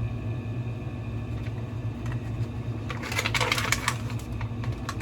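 Steady low background hum, with a short patch of rustling, handling noise about three seconds in.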